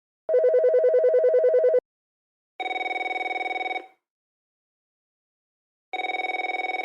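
Telephone ringing: first a burst of about a second and a half of rapidly warbling ring that alternates between two tones, then a different, brighter ring that sounds twice, each ring about a second long with a short fading tail and a pause of about two seconds between.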